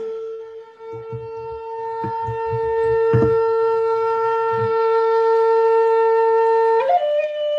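Flute holding one long steady note, then stepping up to a slightly higher note near the end. A few soft low knocks sound underneath during the first half.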